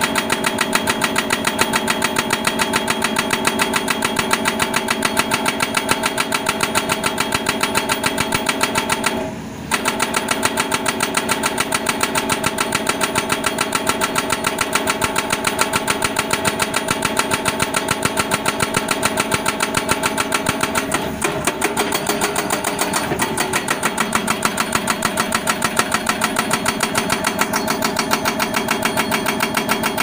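Excavator-mounted hydraulic breaker hammering into hard, stony ground: a rapid, even series of chisel blows over the excavator's steady engine. The blows break off briefly about nine seconds in, then resume.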